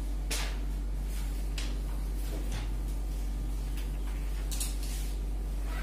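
Short scratchy strokes of a marker and an eraser on a whiteboard as column lines are drawn and wiped, half a dozen brief sweeps spread unevenly, over a steady low electrical hum.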